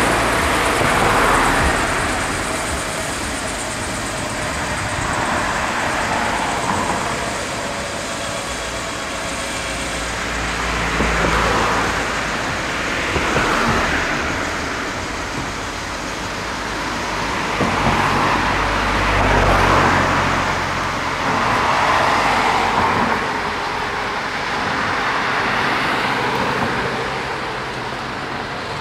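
Airbus EC135 P2 helicopter's twin turbine engines running at ground idle with the main rotor turning after landing: a steady turbine and rotor noise that swells and eases every few seconds.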